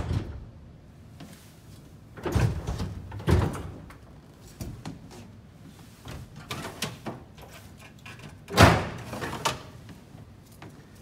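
Airbus A380 passenger cabin door being pulled shut by hand: a series of heavy thuds and rattles as the door swings in and seats in its frame, with the loudest, sharp clunk about eight and a half seconds in.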